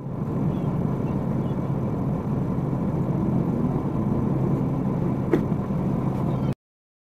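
Vehicle engine idling with a steady low rumble, heard from inside the stationary vehicle, with one brief sharp click or squeak about five seconds in. The sound cuts off suddenly near the end.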